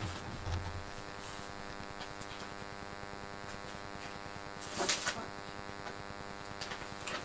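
A cat purring steadily right against the microphone, a sign it is relaxed and content. Louder rustles of fur against the microphone come about half a second in and again around five seconds in.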